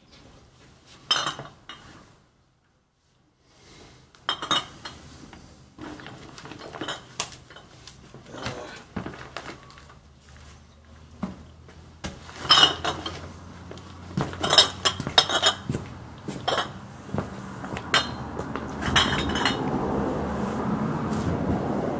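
Glass bottles clinking and knocking together as they are handled in and around a bag: irregular clinks and knocks, with a steadier rushing noise building over the last few seconds.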